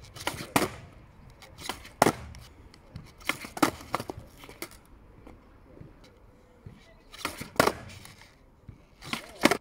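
A skateboard's tail snapping on asphalt and the board slapping back down during repeated stationary ollie attempts. The sharp clacks come in quick pairs about five times, with quiet gaps between.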